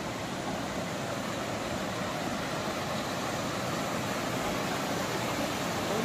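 Steady rush of falling water from the Dudh Dhara waterfall on the Narmada river.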